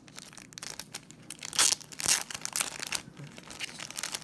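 Clear plastic wrap being torn and crinkled off a foil trading-card pack. Its two loudest rips come about one and a half and two seconds in.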